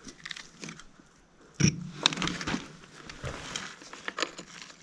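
Loose debris crunching and crackling as it is disturbed, with a sharp knock about one and a half seconds in and scattered clicks after it.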